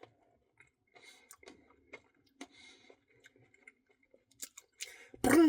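Close-miked mouth sounds of eating a soft-serve Blizzard with candy and cookie-dough pieces: small wet clicks, smacks and soft chewing. Near the end comes a loud voiced sound that falls in pitch, like a groan.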